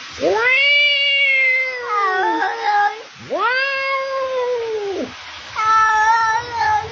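A cat making three long, drawn-out meows. The first two swoop up and then slide down in pitch; the last is flatter and shorter.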